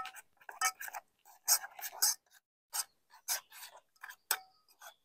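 A utensil scraping and clinking in a small metal camp pot as oatmeal is made: irregular short scrapes and taps, a few leaving a brief metallic ring.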